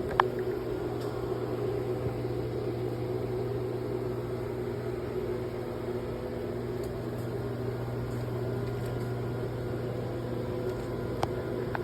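Steady low mechanical hum, with a sharp click just after the start and another near the end.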